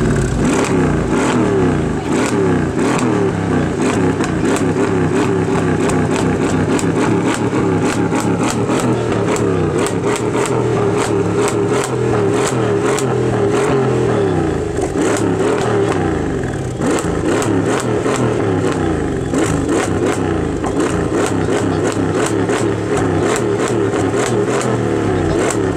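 Tuned Mercedes-Benz CLS63 AMG's twin-turbo V8, tuned to 700 bhp, running and being revved lightly at the tailpipes, its pitch rising and falling, with frequent short crackles throughout.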